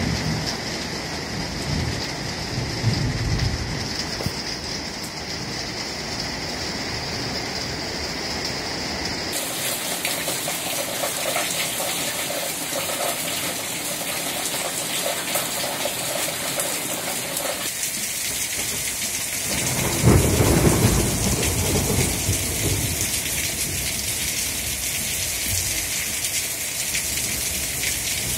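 Heavy rain pouring down during a thunderstorm, with thunder rumbling: a short rumble about three seconds in and a louder, longer one about twenty seconds in.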